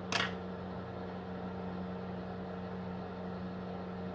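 A steady machine hum with a low tone, and one short click just after the start.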